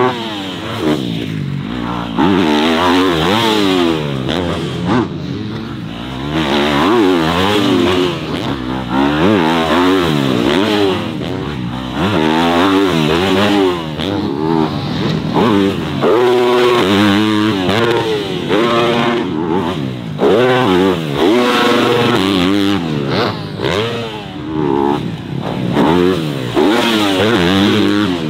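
Dirt bike engine revving, its pitch rising and falling again and again.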